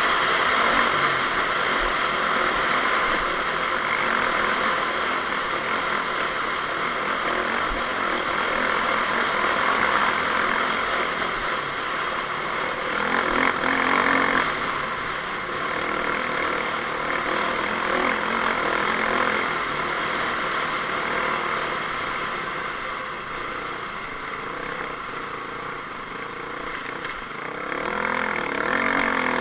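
Dirt bike engine running at speed, heard from a camera mounted on the bike, under a steady noisy rush. The engine note swells briefly about halfway through and again near the end.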